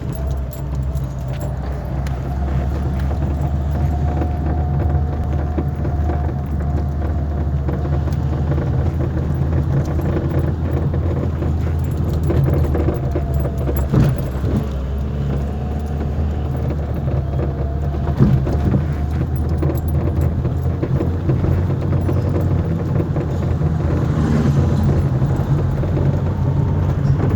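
A steady, low engine hum with a constant light jingling rattle over it, and two sharp knocks about halfway and two-thirds of the way through.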